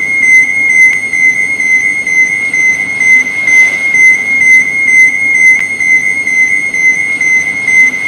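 Electronic overload warning alarm sounding one continuous high-pitched beep tone that pulses regularly in loudness.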